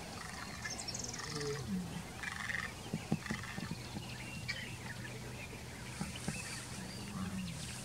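Wild birds calling and chattering in the background, with short chirps and a quick rattling call about a second in, over a faint steady low hum.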